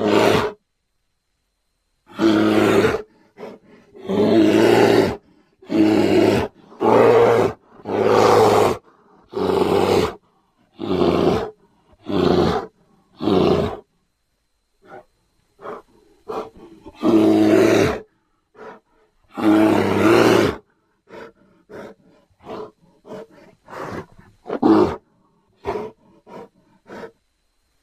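Grizzly bear roars and growls: a string of separate loud calls, each up to about a second and a half long with short silent gaps between them, turning into shorter, choppier grunts in the second half.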